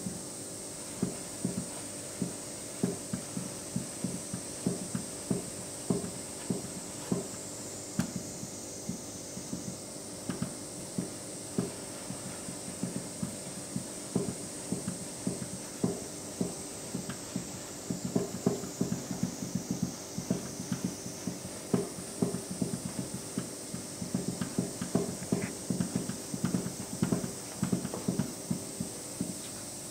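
Hands raking and rubbing moist, crumbly buckwheat flour in a lacquered soba kneading bowl during the water-mixing stage, with soft knocks from the hands and bowl about two a second. The knocks come quicker and closer together in the last third.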